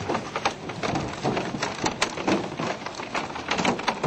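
Many fish leaping out of the river and splashing around and against a boat: a dense, irregular patter of splashes and knocks.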